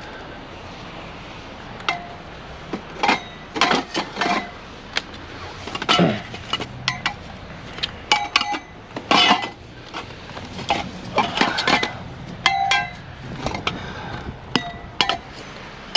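Pieces of scrap metal clanking and clinking together as they are picked up and dropped, a string of sharp strikes starting about two seconds in, several ringing briefly.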